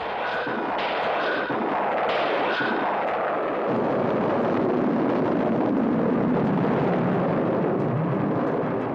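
Cartoon sound effect of a spaceship's rocket engines at ignition: a loud, steady rushing noise that grows deeper and a little louder about three and a half seconds in.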